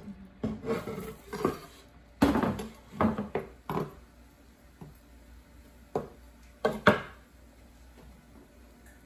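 A kitchen knife scraping and knocking against a bamboo cutting board and a skillet as a round pastry is slid off the board into the pan. It is a run of short scrapes and knocks, then a few sharp clacks about six to seven seconds in as the knife is set down on the board.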